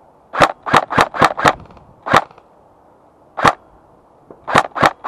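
Airsoft G36 electric rifle with blowback firing single shots: a quick run of five at about four shots a second, two spaced-out shots, then two more in quick succession near the end.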